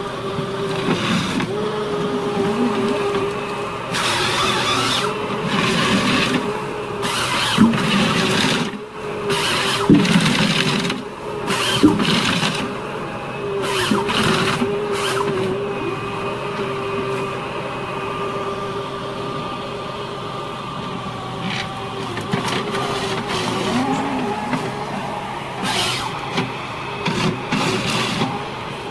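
Wheeled forestry harvester running under load, its engine and hydraulics holding a steady tone. The harvester head delimbs and feeds a spruce trunk, with repeated sharp cracks and snaps as branches are stripped off, in several clusters.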